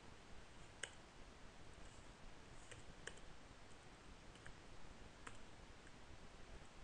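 A few faint, sparse clicks of a computer keyboard and mouse, over near-silent room tone.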